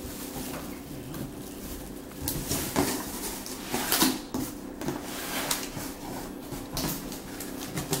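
Plastic wrap crinkling and a cardboard box's flaps rustling as a new microwave is unpacked, in irregular bursts, the loudest about four seconds in.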